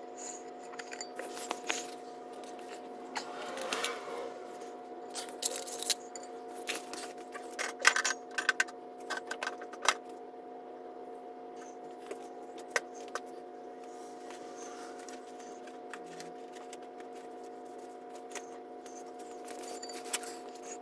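Metal clinks and rattles of hand tools and parts being handled, in quick clusters through the first ten seconds or so and sparser after, over a steady hum.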